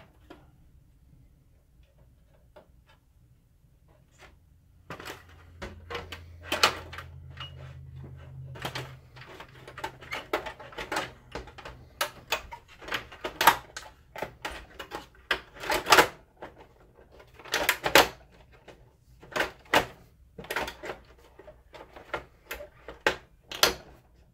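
Plastic projector housing being fitted back together: a string of irregular plastic clicks and knocks as the top cover is lowered onto the chassis and pressed into place, starting about five seconds in.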